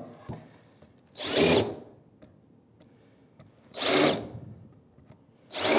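Cordless drill/driver countersinking screw holes in a wooden shelf board, in three short bursts of about half a second each, the motor whirring up and back down each time.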